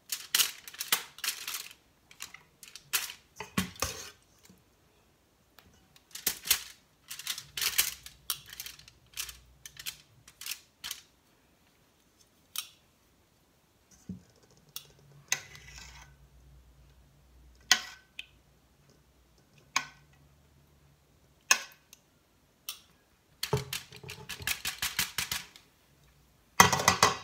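Metal kitchen tongs clacking and crinkling the aluminium foil lining of a baking tray as marinated pork chops are laid out. The sound comes in runs of crisp clicks and crackles with short pauses and a few single clicks between them.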